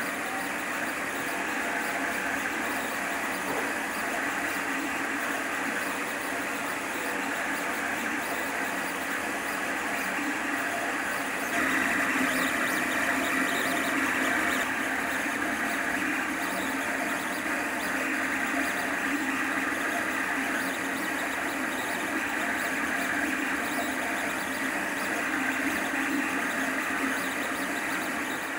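Lulzbot TAZ 6 3D printer running while printing: a steady mechanical whir with a high whine, a little louder for about three seconds near the middle.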